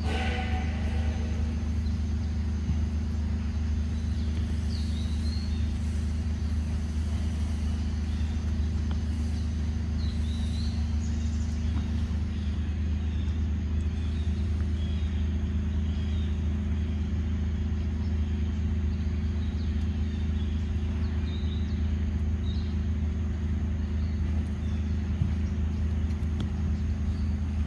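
Steady low mechanical rumble with a constant hum, like a running engine, with a few faint, short high chirps here and there.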